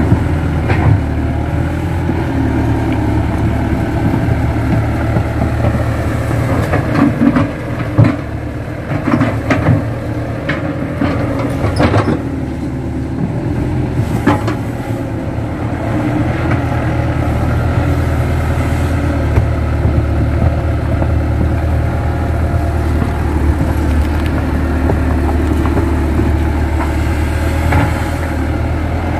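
Kato tracked excavator's diesel engine running steadily under working load, with a cluster of sharp clanks and knocks in the middle as the machine works.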